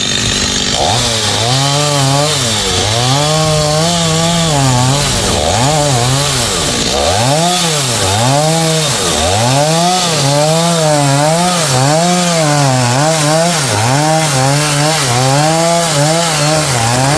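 Two-stroke chainsaw running at high revs and cutting into tamarind wood, its engine pitch rising and falling about once a second, dropping sharply twice mid-way as the chain loads up in the cut.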